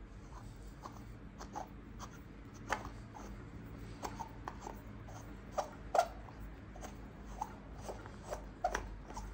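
A frosted glass ball shade being twisted onto its threaded holder on the lamp's metal arm: scattered small clicks and scrapes of glass against metal, the sharpest about six seconds in.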